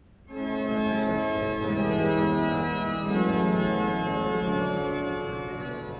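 Organ playing slow, sustained chords that swell in about a third of a second in, with the low notes changing a couple of times and easing off toward the end.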